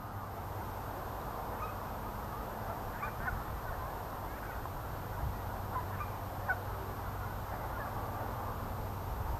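Faint bird calls, short and scattered every second or so, over a low steady outdoor rumble.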